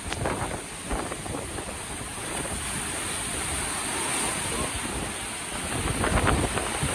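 Large storm waves on Lake Michigan surging and crashing against a rocky cliff shoreline, with strong wind buffeting the microphone. The surf grows louder near the end.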